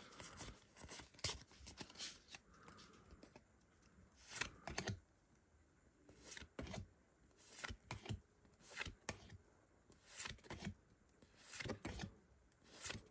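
Pokémon trading cards being slid one at a time from the back of a small hand-held stack to the front, giving a faint flick or slap of card on card roughly once a second, some in quick pairs.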